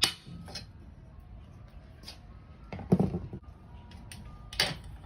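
Metal clanks and clicks as a screwdriver levers a roof rack bracket into line with its bolt hole: a few sharp knocks, the heaviest about three seconds in.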